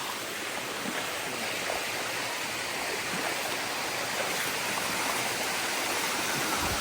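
Water of a waterfall cascading over rock: a steady rushing hiss that grows slowly louder.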